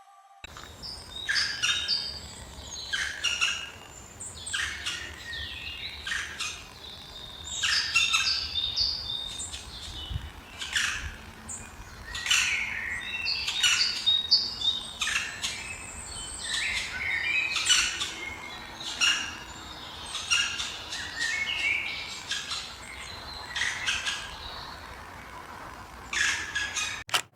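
Several birds calling and chirping, short high calls coming in quick overlapping clusters with brief pauses between them.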